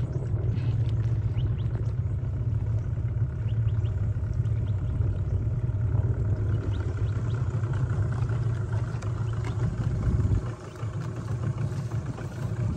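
Outboard boat motor running at low speed, a steady low drone that dips briefly about ten and a half seconds in.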